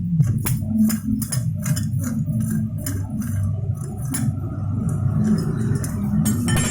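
Metal hand tools clicking and clinking against a motorcycle's clutch parts during disassembly: a quick series of sharp metallic taps, two or three a second, over a steady low hum, with a short scrape near the end.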